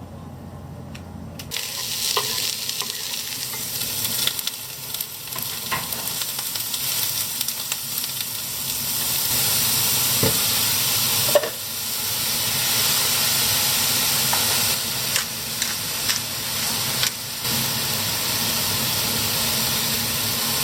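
Food sizzling as it fries in a pan. The hiss starts suddenly about a second and a half in and grows a little louder later on, with occasional clicks and knocks from stirring.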